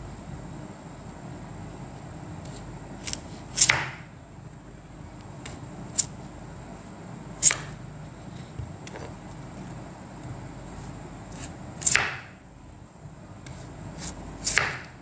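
Chef's knife slicing through a block of white radish (daikon), each cut ending with the blade knocking against a wooden cutting board: about five sharp knocks a few seconds apart, with smaller ticks between.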